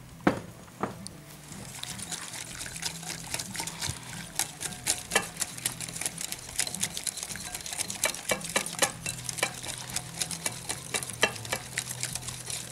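Wire whisk beating a thin gram-flour and spice batter in a glass bowl: a fast, uneven run of light clinks and wet scrapes against the glass.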